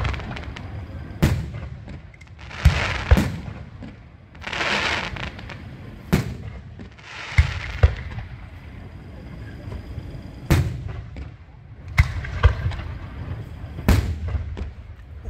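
Fireworks going off: a string of sharp bangs, one every second or two, with hissing bursts in between.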